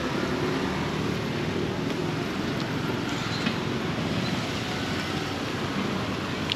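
Motorbike engine and street traffic running steadily close by, with a light click about three and a half seconds in.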